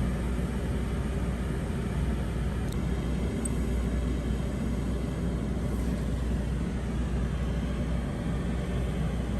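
Steady low background rumble with no clear events, holding an even level throughout.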